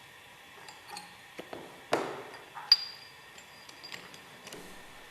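Metal tools and steel separator parts knocking and clinking, about five separate strikes. The sharpest one, about two and a half seconds in, leaves a brief high metallic ring. This is the work of pulling the spacer ring off a Westphalia separator's bowl assembly with a puller.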